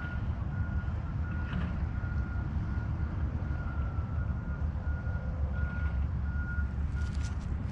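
A vehicle's reversing alarm beeping in a steady single tone, about once every two-thirds of a second, over a constant low rumble.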